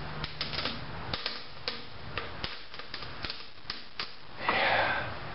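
Turning tool cutting the nearly severed neck of a large cedar lamp blank spinning on a wood lathe, giving a series of irregular sharp ticks. A louder rasping rush comes about four and a half seconds in.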